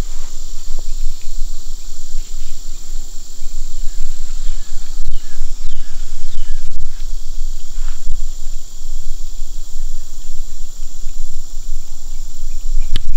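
Steady high chirring of crickets over a low rumble, with faint small chirps in the middle and a single sharp click about a second before the end.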